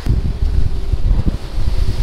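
Wind buffeting the microphone on a boat running fast over open sea, with a steady engine hum underneath.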